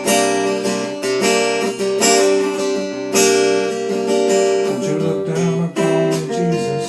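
Acoustic guitar strumming ringing chords, with a strong strum about once a second, in an instrumental passage between sung lines of the song.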